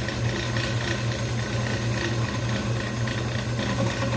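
Small lathe running with a steady motor hum while turning the button.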